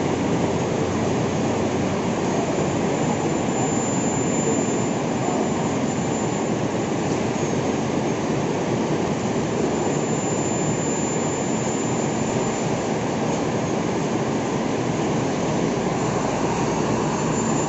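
Steady noise of heavy steel-mill machinery running, with a faint high whine that comes and goes a few times.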